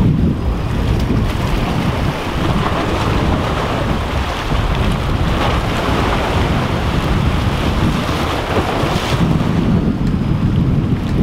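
Strong wind buffeting the microphone as a steady low rumble, over waves washing against jetty rocks.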